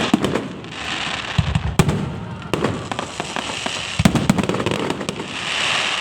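Fireworks display: shells bursting with sharp bangs at irregular intervals, with a higher-pitched hissing spray about a second in and again near the end.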